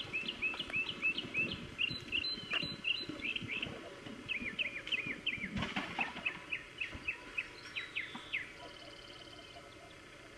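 A bird calling in a quick series of short chirps, about four a second, pausing briefly and then trailing off and stopping near the end, over low rustling.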